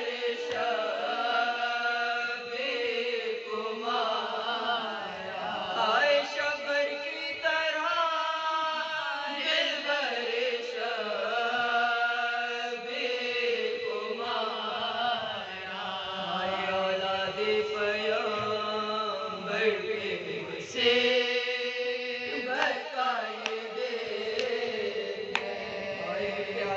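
A small group of women singing a marsiya, a Shia mourning elegy, as a slow, unaccompanied chant with long held, wavering notes.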